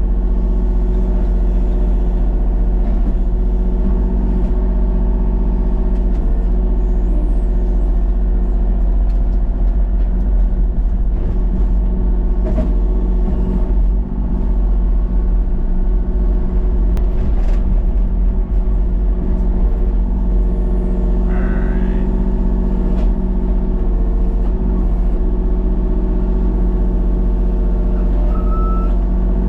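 Vehicle engine running steadily at an even speed, a constant drone with no revving.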